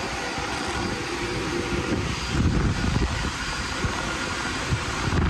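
The cooling fans of many GPU cryptocurrency mining rigs running flat out: a loud, steady whir with a few steady whining tones, and some low rumble about halfway through.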